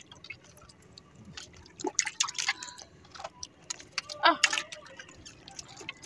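Water splashing and dripping in a plastic bucket as a freshly caught fish is put in and handled over it, with short splashy bursts about two seconds in and again just after four seconds.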